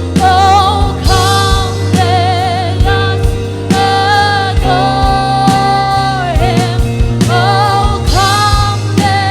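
Worship song: a sung melody with long held notes and vibrato over a steady bass line and regular drum beats.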